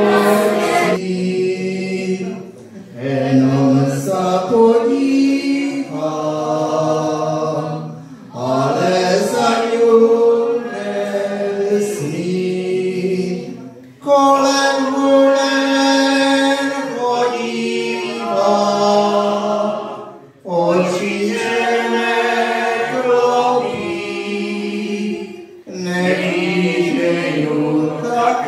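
A man and a woman singing together into a microphone, unaccompanied, in sung phrases of about five seconds separated by short pauses.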